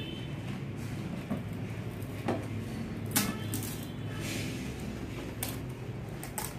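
Eating at a table: crisp pani puri shells being cracked open by hand and utensils knocking against steel bowls, a few scattered sharp clicks and knocks over a steady low hum.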